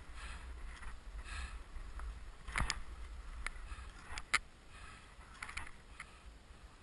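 Rhythmic swishing of snow under a person moving across a snowy slope, with wind rumble on the microphone and a couple of sharp clicks about two and a half and four seconds in.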